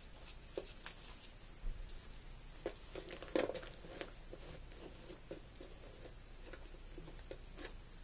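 Fabric and knee-pad material being handled and turned over: soft rustles and scattered light taps, the loudest about three and a half seconds in.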